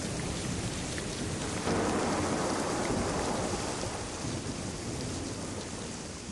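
Rain pouring with thunder rumbling, a storm sound laid under a title sequence. The storm swells suddenly about two seconds in, then slowly dies away.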